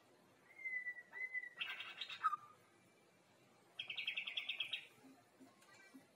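Young white-rumped shama singing: a thin clear whistle about half a second in, then a short run of quick notes ending on a lower note, and a fast trill about four seconds in. A juvenile still practising its full, clear song.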